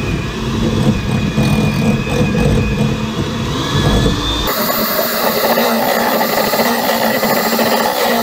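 Handheld electric mixer running, its beaters churning a thick mix of cream cheese, sour cream and mayonnaise in a glass bowl. About halfway through, the deep hum drops away and a higher whirr takes over.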